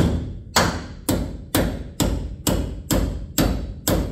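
Steel hammer striking the steel end of a snow-bus bogie's walking-beam spindle in a steady rhythm, about two blows a second, each with a brief metallic ring, to give the fitted part a tighter fit.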